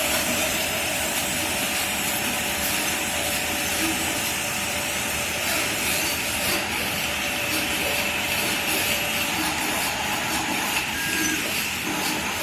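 Radio-controlled model bulldozer running steadily, its small electric drive motors and gearboxes whirring with a thin steady whine.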